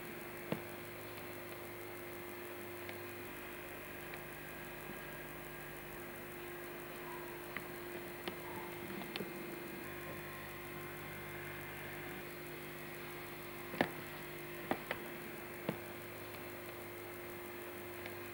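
Steady electrical hum with hiss on an analog Betamax tape's sound track, broken by a few short clicks, most of them clustered about three-quarters of the way through.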